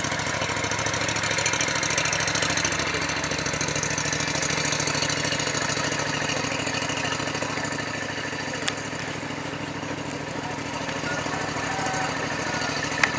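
A small engine runs steadily with an even, rapid throb. A sharp click sounds about nine seconds in and another near the end.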